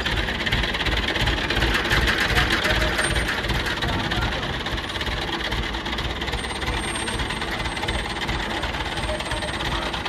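Tractor diesel engine driving a lift-and-mixer machine, running with a fast, even clatter that holds steady throughout.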